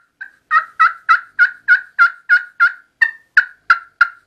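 Turkey friction pot call played with a wooden striker, sounding a long, even run of hen yelps, about three a second, each note breaking from a higher to a lower pitch.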